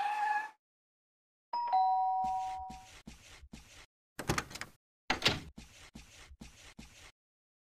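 A two-note falling chime, ding-dong, about a second and a half in, followed by a string of about a dozen short, hissy swishes.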